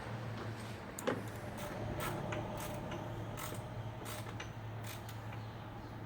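Metal parts and hand tools being handled at the workbench during a motorcycle fork tube rebuild: a string of short, sharp clicks and clinks, the loudest about a second in, over a steady low hum.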